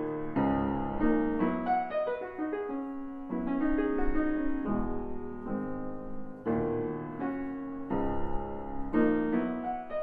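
1897 Chickering 109C grand piano being played: chords and melody notes struck about once a second and left to ring, sounding through its original soundboard, recrowned.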